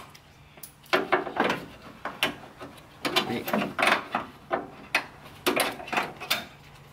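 Hand tool working loose the fasteners of a truck's plastic front grille: several short bursts of clicking and plastic rattling.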